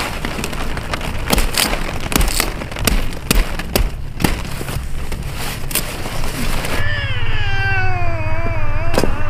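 Cauliflower stalks snapping and cracking as the heads are cut and broken off: a run of crisp, sharp snaps over the first several seconds. About seven seconds in, a small child's drawn-out, wavering whine runs for about two seconds.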